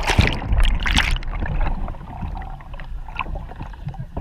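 Water splashing and rushing with wind buffeting the microphone. It is loudest for about the first second, then settles into a lower, steady wash with occasional small knocks.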